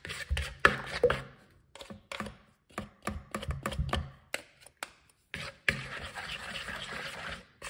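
A metal spoon and a plastic spoon clicking and scraping against a plastic mixing bowl, stirring a thick, gritty larb dressing of toasted rice powder and chilli. The strokes come irregularly with short pauses. A steady background sound, likely music, comes in near the end.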